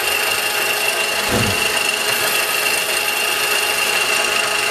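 CNC-converted milling machine's spindle running loud with a steady high whine, its end mill engraving a pattern into a wooden board; the mill noise drowns out the stepper motors. A brief low thud about a second and a half in.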